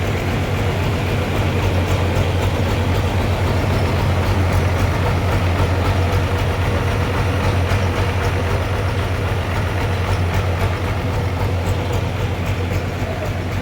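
Sawmill running steadily while sawing a trembesi log into boards: a constant low machine hum under a broad rushing noise, with no breaks or changes.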